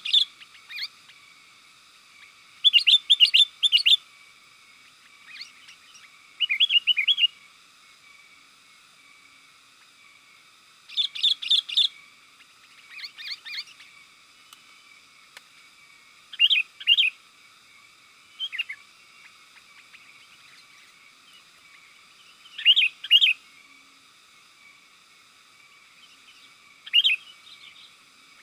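Sooty-headed bulbul (kutilang) singing: short bursts of quick, bubbly chirping notes repeated every few seconds with brief pauses between.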